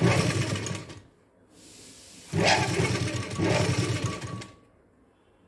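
Sewing machine stitching a seam in two short runs, about a second and then about two seconds, with a brief stop between them.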